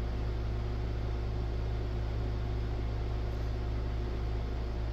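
Steady low electrical hum with an even, fan-like hiss of running room equipment; nothing starts or stops.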